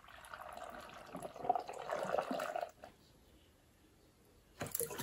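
Water poured from a plastic bottle into a homemade external aquarium filter canister, splashing and trickling for about two and a half seconds as the canister is filled. A short knock sounds near the end.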